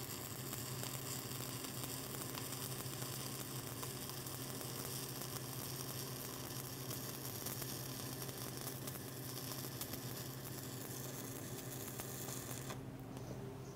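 Shielded metal arc (stick) welding with a 3/32-inch 7018 electrode: the arc gives a steady crackling sizzle with fine pops as a hot pass is run along a beveled plate groove. The arc breaks off near the end, leaving a low hum.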